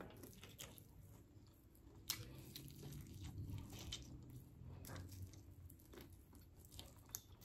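Faint close-up chewing and biting on a hot chicken wing, with a few soft crunches and sharper mouth clicks scattered through.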